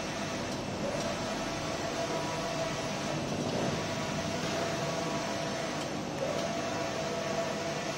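Yaselan direct-to-fabric sublimation printer running: a steady mechanical hum with a whine that breaks off and starts again about every three seconds as the print-head carriage shuttles back and forth.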